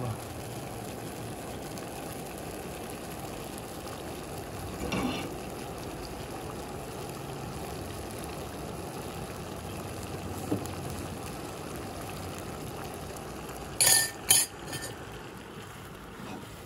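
Penne in tomato sauce simmering in a frying pan, a steady bubbling sizzle as the pasta finishes cooking in the sauce. Near the end, two sharp clinks of a metal ladle against the pan.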